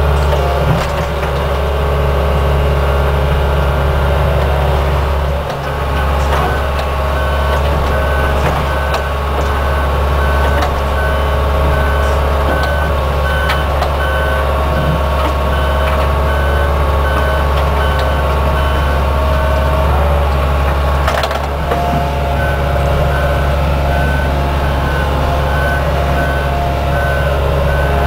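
Small excavator's diesel engine running steadily, with a travel warning alarm beeping rapidly and evenly from about six seconds in. The beeping breaks off briefly about three quarters of the way through, then resumes.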